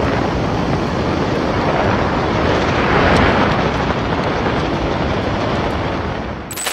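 Hurricane-force wind blowing hard through palm trees, one dense, steady rushing noise that swells to its loudest about halfway through.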